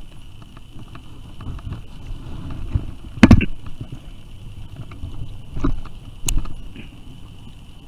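Three knocks against a sit-on-top kayak, the first, about three seconds in, the loudest, over a low steady background noise.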